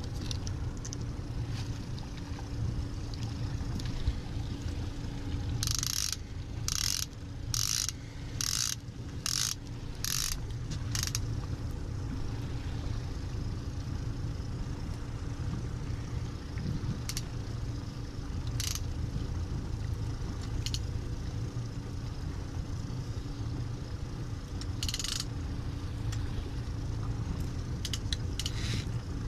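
Honda 90 four-stroke outboard motor running steadily at slow trolling speed. About six seconds in come seven short ratchet-like buzzes, evenly spaced about two-thirds of a second apart, and one more near the end.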